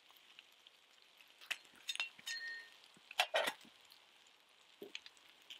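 Light clinks and knocks of metal camp cookware being handled, the loudest a short clatter about three seconds in, over the faint steady sizzle of bacon frying in a pan on the fire.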